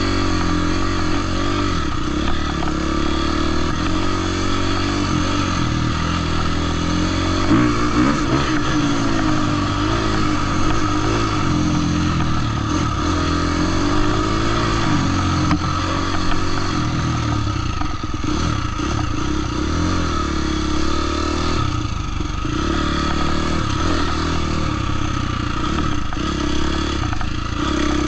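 Husqvarna dirt bike engine running under load on a trail ride, its pitch rising and falling again and again as the throttle is worked.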